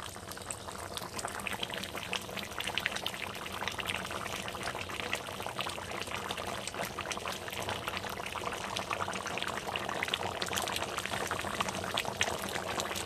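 Mutton and potato curry boiling in a pot, the thick gravy bubbling and popping in a steady stream of small pops.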